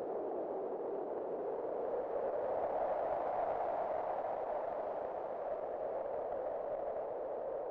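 Wind blowing, a steady rush with a narrow pitched centre that swells and rises slightly in pitch about three seconds in, then eases off and fades near the end.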